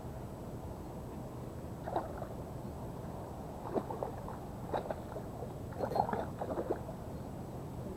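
Hooked fish splashing and thrashing at the water's surface several times, in short bursts near 2, 4, 5 and 6 seconds in, over a steady low background hum.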